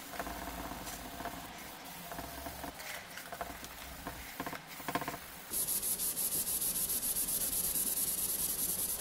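A sponge scrubbing toothpaste on a smooth white surface to rub off permanent marker. The rubbing is soft and scratchy at first. About five and a half seconds in it turns into fast back-and-forth scrubbing with a much louder rasping hiss, which stops abruptly at the end.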